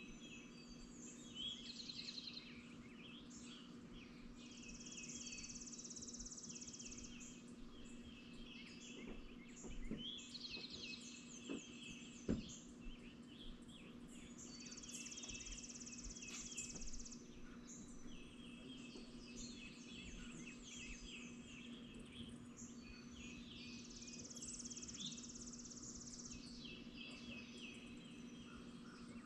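Faint morning birdsong: several birds repeating high trills, one giving a buzzy high song roughly every nine seconds, over a steady low hum. A single sharp knock about twelve seconds in.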